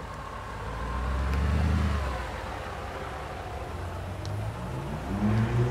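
Straight-piped V8 of a Mercedes-Benz G500 4x4² under throttle off-road. The deep exhaust note swells about a second in and eases off, then a short rev rises and falls near the end.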